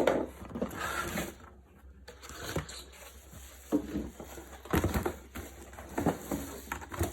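Packaging being handled while items are lifted out of a box: rustling and scraping with several short knocks in the second half.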